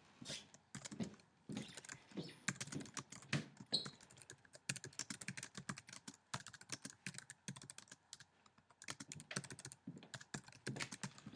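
Typing on a computer keyboard: fairly faint, quick runs of key clicks with a couple of short pauses, as a sentence is typed out.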